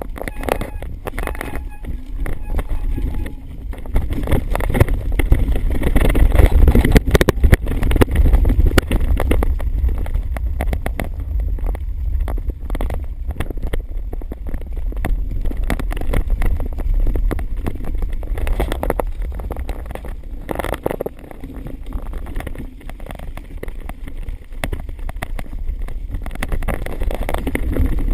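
Wind rumbling on a handheld action camera's microphone while riding an electric trike, with a dense clatter of small knocks and rattles from the ride.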